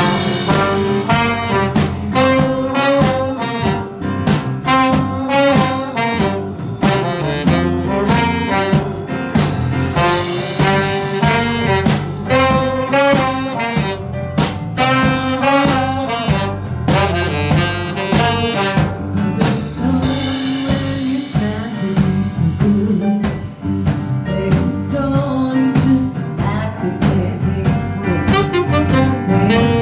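Small live band playing a bluesy tune with a steady beat: a saxophone leads over acoustic guitar, electric bass and keyboard.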